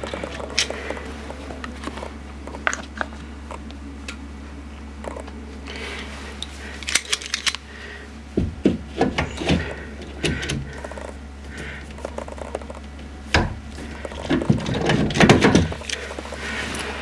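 Hand PEX compression tool and brass fittings being worked at a shower valve box: scattered sharp clicks, with two denser runs of clunks and knocks about eight and fourteen seconds in. A steady low hum lies underneath.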